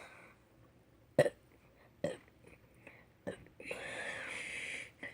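A person's deliberate burps: three short, sudden burps about a second apart, then a longer breathy sound lasting over a second near the end.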